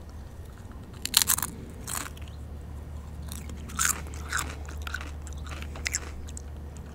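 Taco-flavour Doritos tortilla chips being bitten and chewed close to the microphone: crisp crunches, a loud cluster about a second in, then smaller crunches on and off.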